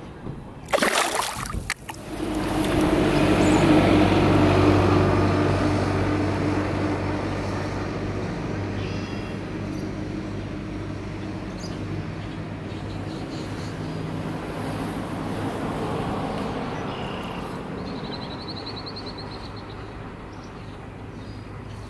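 A brief splash about a second in, then the engine of a passing vehicle swells to its loudest a couple of seconds later and slowly fades away. A short run of rapid high chirps comes near the end.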